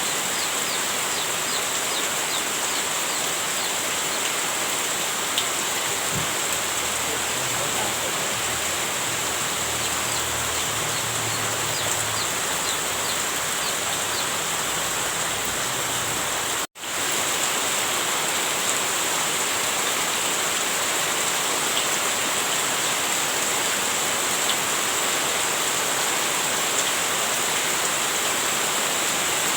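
Heavy rain falling steadily, a dense even hiss with scattered drop ticks. A faint low rumble sits underneath for about ten seconds in the middle, and the sound cuts out for an instant about seventeen seconds in before the rain resumes.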